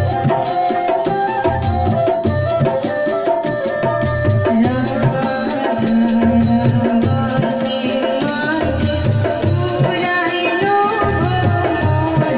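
A live Goalpariya-style folk song played on a rope-laced barrel drum, small hand cymbals and a long-necked plucked lute, the drum and cymbals keeping a steady beat. A woman starts singing partway through.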